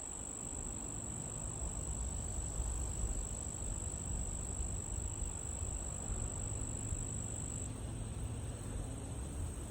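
Insects trilling in one steady, continuous high-pitched note, which shifts slightly higher and fainter near the end, over the low rumble of wind in tall prairie grass.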